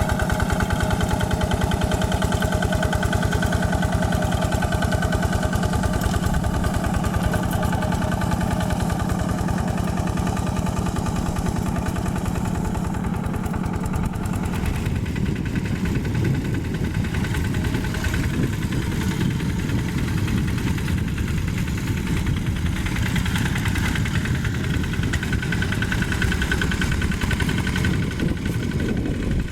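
Yanmar single-cylinder diesel engine on a Quick G1000 walking (hand) tractor running steadily while ploughing topsoil, with a rapid even chugging beat. About halfway through the sound changes, becoming duller as the middle of the sound drops away.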